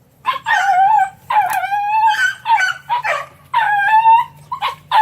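Three-month-old puppies yelping and howling, a string of about five high, wavering cries in quick succession.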